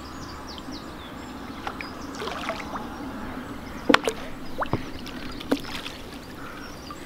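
Hooked carp splashing at the surface close to the bank as it is drawn to the landing net. A few sharp sounds come a little before and after the middle.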